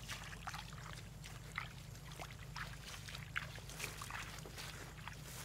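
Footsteps through wet grass and low leafy plants, with leaves brushing against the legs: soft, irregular rustling steps about two to three a second, over a steady low hum.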